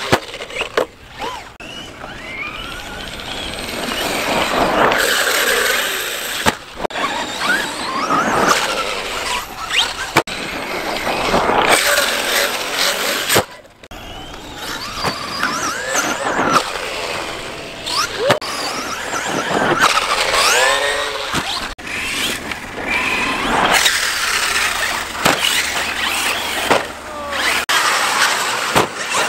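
Electric RC trucks running hard, their motors whining up and down in pitch with the throttle, over and over.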